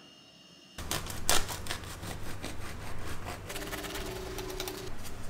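Knife sawing through a freshly baked bread-machine loaf, the crust crackling in quick, irregular crunches from about a second in, loudest near the start.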